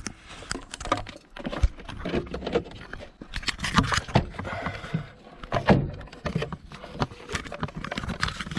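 Irregular plastic clicks, scrapes and rustling as fingers work to twist a tight indicator bulb holder into its housing on a Honda VFR800; the holder's rubber seal makes it stiff to turn.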